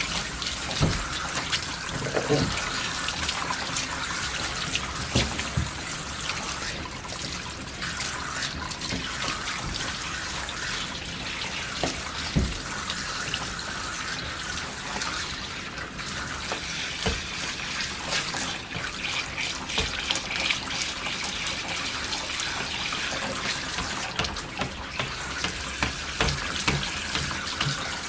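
Handheld shower sprayer running water over a dog in a grooming tub: a steady hiss of spray, with occasional small knocks and splashes.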